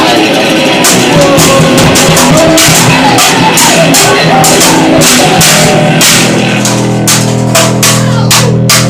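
Loud, lo-fi garage noise rock: distorted guitar over a pounding drum kit. About two-thirds of the way in, a steady held low chord takes over under quicker drum hits.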